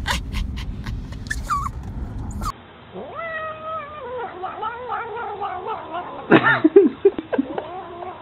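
A domestic tabby cat making a long, strange yowling caterwaul that wavers up and down in pitch for several seconds, with louder sharp cries a couple of seconds before the end. It is preceded by a quick run of short breathy sounds over a low rumble.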